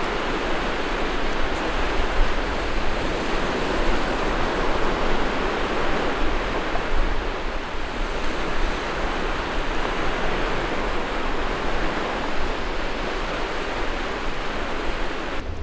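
Sea surf breaking and washing up a sandy beach: a steady rushing noise that cuts off abruptly at the very end.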